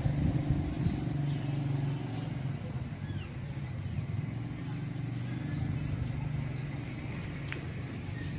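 Steady low hum of a motor vehicle engine running.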